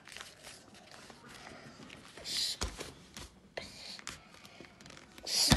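Paper being folded and creased by hand on a table into a paper airplane: soft rustling, with a louder rustle and a knock about two and a half seconds in and another rustle ending in a sharp tap near the end.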